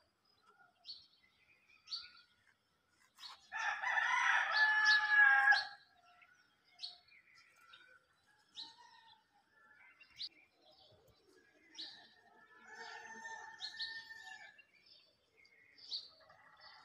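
A rooster crows once, loud and drawn out, about three seconds in, then crows again more faintly about twelve seconds in. A small bird chirps throughout in short, high, sharp notes every second or two.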